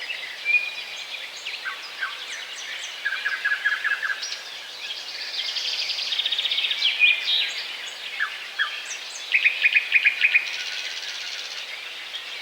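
Small songbirds chirping and calling, several voices overlapping: single high chips mixed with short, rapid runs of repeated notes, over a steady background hiss.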